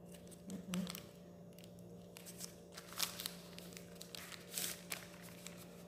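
Faint rustling and rubbing of paper as hands smooth a glued paper cutout down onto a brown paper bag, with scattered short scrapes and light taps. A steady low hum sits underneath.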